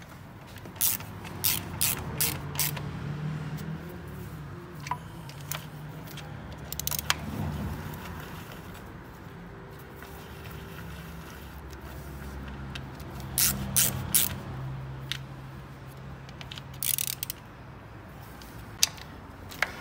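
Ratchet wrench clicking in short runs and metal tools clinking as bolts are fitted during reassembly of a diesel engine's intake manifold and EGR valve, over a low steady hum.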